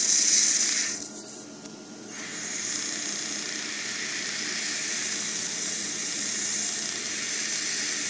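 Steady high hiss of the Biolase Waterlase iPlus dental laser's air-and-water spray as the handpiece works on the gum. The hiss cuts out for about a second near the start, then resumes.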